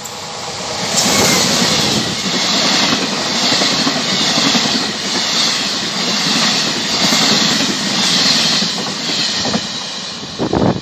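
Electric-hauled passenger train of coaches passing close by at speed: a loud, steady rush of wheels on rail that swells and eases about once a second, dying away near the end. A few sharp knocks just before the end.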